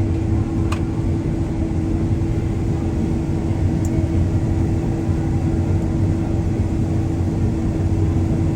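Heavy farm machinery engine running steadily, a low drone with a constant hum. A single light click just under a second in.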